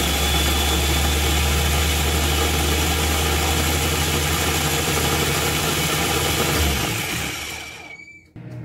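Small personal blender's motor running steadily, puréeing steamed cauliflower with butter and cream into a mash. It winds down with a falling whine near the end and stops.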